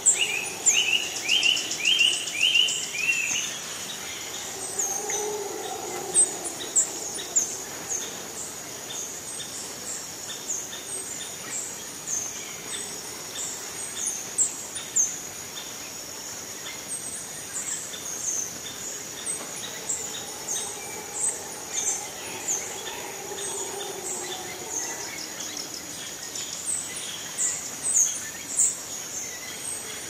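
Tropical rainforest dawn chorus: many birds chirping and calling over a steady high insect drone, with a quick run of repeated rising notes in the first few seconds and a faint low sound swelling twice.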